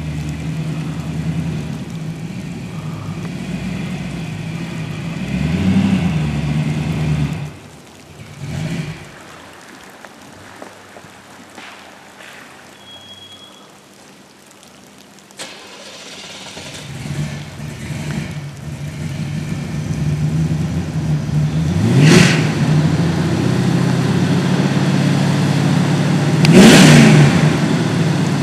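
Chevrolet K10 pickup's engine through its aftermarket exhaust, running steadily and fading to a low rumble for several seconds in the middle. It grows louder as the truck comes closer, with two sharp blips of the throttle near the end about five seconds apart.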